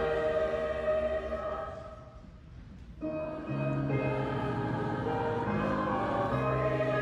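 A choir singing in long held notes, with a short quiet gap between phrases about two seconds in before the next phrase begins.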